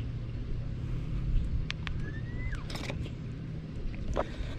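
A steady low rumble with a hum running under it, broken by scattered light clicks and handling knocks. Near the middle comes a short rising whistle-like tone that drops off sharply.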